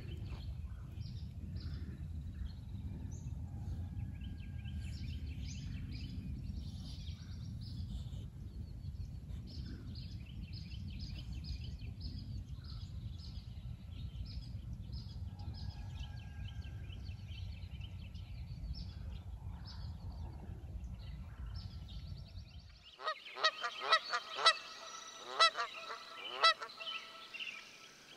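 Small birds chirping over a low, steady rumble. Near the end the rumble cuts off and geese honk loudly, many calls in quick succession.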